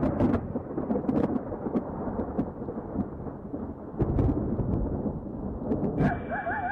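Rumbling thunder over steady rain. Near the end a warbling tone comes in.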